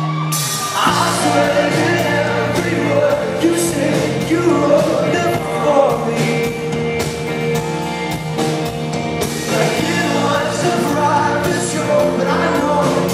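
Live pop-rock band playing with a male lead singer singing into a handheld microphone, over sustained chords and a steady beat.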